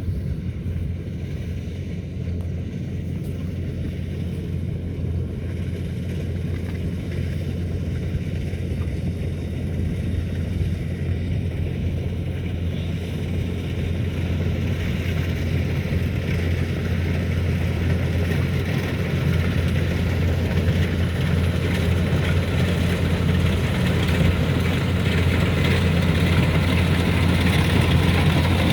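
Rice combine harvester's engine running steadily with a deep hum, growing gradually louder.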